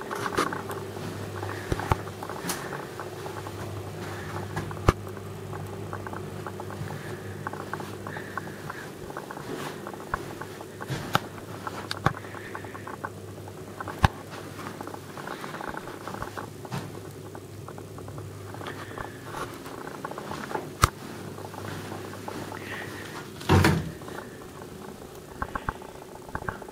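Scattered light clicks and knocks from footsteps and from handling a handheld camera in an empty room, over a steady low hum. The hum stops suddenly about 23 seconds in, at a louder rustling knock.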